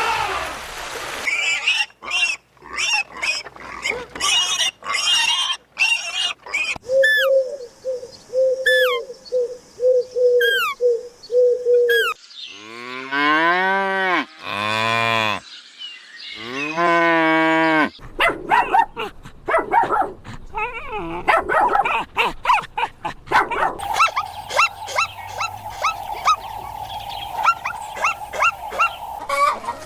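A sequence of farm animal calls, with a cow mooing in two long, rising-and-falling calls near the middle, between runs of shorter calls.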